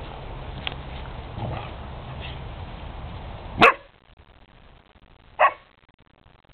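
Newfoundland puppy barking in play: two short, sharp barks about two seconds apart, the first the louder.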